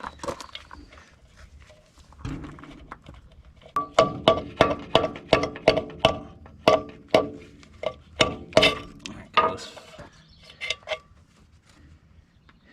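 Repeated sharp metal-on-metal strikes with a ringing tone, about fifteen blows at two to three a second, then two lighter taps near the end: a steel tool striking parts of a vehicle's drum brake assembly.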